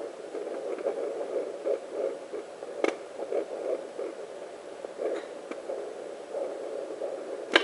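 Handheld fetal Doppler's speaker playing rhythmic, pulsing whooshes of blood flow picked up through a pregnant belly as the probe moves. There is a sharp click about three seconds in.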